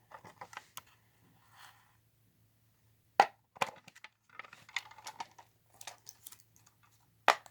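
Plastic 8-track cartridge shell being handled and fitted together: two sharp clicks, one about three seconds in and one near the end, with light plastic rattling and tapping between them.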